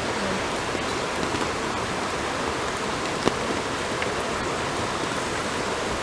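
Heavy rain falling steadily, a dense, even hiss, with a single sharp tap about three seconds in.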